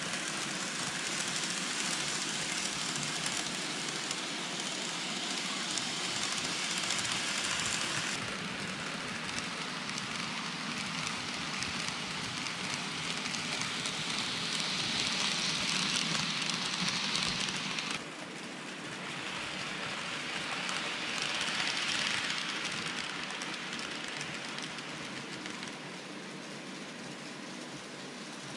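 N-gauge model trains, a Micro Ace 811 series and a Kato 885 series, running on layout track: a steady rushing rattle of small wheels on the rails and motor whir. It swells twice as trains pass close by and drops abruptly a little past halfway.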